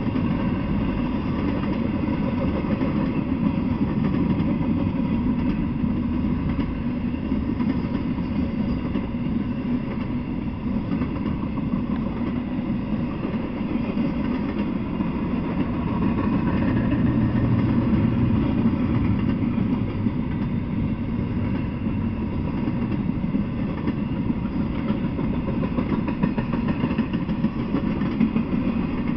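Intermodal freight train of container and trailer flatcars rolling past at speed: a steady rumble of steel wheels on the rails.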